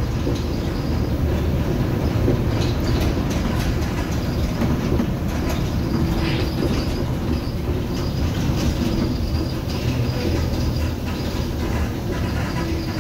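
Volvo B7RLE city bus with a Marcopolo Viale body running: a steady diesel and road rumble with rattling and clattering from the body and fittings throughout.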